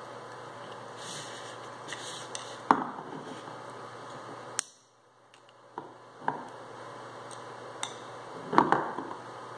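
Scattered clicks and knocks of a screwdriver and hands handling a Mitsubishi M000T20873 starter motor's metal housing, with two louder knocks, one about a third of the way in and one near the end.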